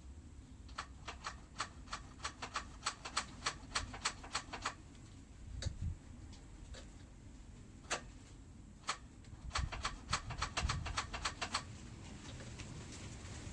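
Rapid sharp clicking, about three to four clicks a second, in two runs of a few seconds each with a single click between them, and a couple of dull low thumps.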